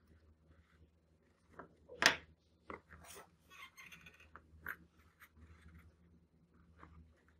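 Small handling noises as a cardboard box, a thin axle rod and plastic toy wheels are worked together on a wooden table: scattered clicks and rubbing, with one sharper knock about two seconds in. A steady low hum runs underneath.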